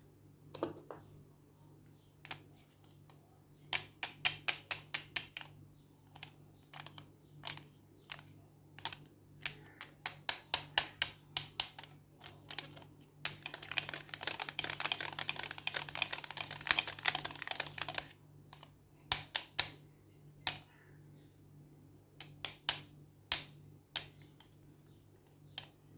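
Quick sharp taps and clicks in bursts, as of fingernails and hands on a plastic toy and its packaging during an unboxing, with a denser stretch of rapid crackling lasting about five seconds in the middle.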